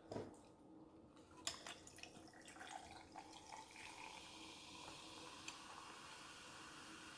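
Faint drinking sounds of a carbonated drink: a soft gulp and a few small liquid clicks, then an even fizzing hiss that builds from about four seconds in.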